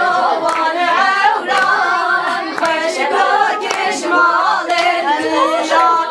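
A group of women singing a Kurdish folk song together without instruments, several voices overlapping.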